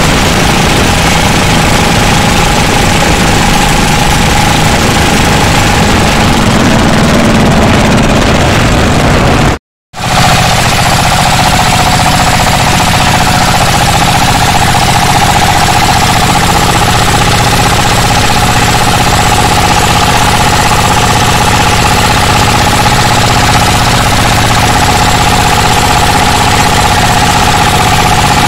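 Dompeng diesel engine of a racing longboat running hard, a loud, steady clattering drone. The sound cuts out for a split second about ten seconds in, then carries on.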